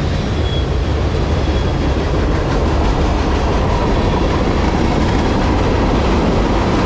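Freight cars of a long CSX manifest train rolling past close by: a steady, loud rumble and clatter of steel wheels on the rails, with a faint thin wheel squeal partway through.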